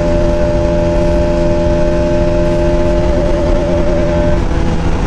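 Bajaj Pulsar RS200's single-cylinder engine running at steady revs under way through a road tunnel, with road and wind rush. The engine note wavers slightly about three seconds in and changes near the end.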